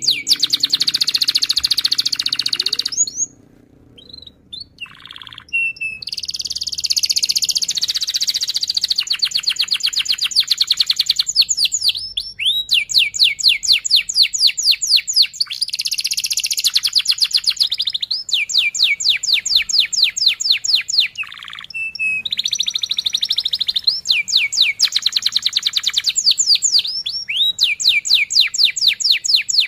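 Domestic canary singing rolling trills: long phrases of rapid, evenly repeated high chirps, broken by short pauses and a longer lull about three seconds in.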